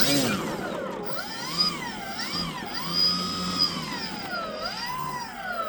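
Electric motors and propellers of a battery-powered RC model C-160 Transall whining as the throttle is run up and down on the ground. The pitch rises and falls about three times.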